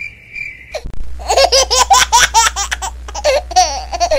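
High-pitched, rapid giggling laughter, a cartoonish laugh sound effect, starting about a second in after a brief steady high tone.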